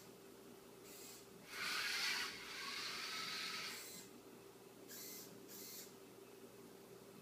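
Small geared DC drive motors of a tireless four-wheel Arduino robot whirring for about two seconds, loudest near the start, as the robot turns on a laminate floor. Later come two brief whirs about half a second apart from the servo sweeping its ultrasonic sensor. A steady low hum runs underneath.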